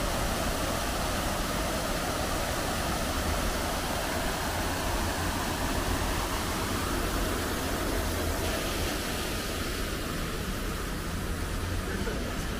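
Large plaza fountain's jets splashing into the basin: a steady rush of water with a low rumble underneath. The rush eases a little about two-thirds of the way through.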